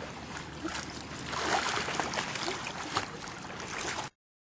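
Water sloshing and splashing around a person wading with an inflatable air mattress, with many small splashes; it cuts off suddenly about four seconds in.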